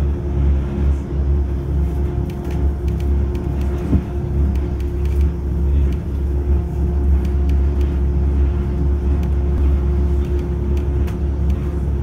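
Gornergrat cog railway train running, heard from inside the carriage: a steady low rumble with a steady motor hum over it, scattered light clicks, and a knock about four seconds in.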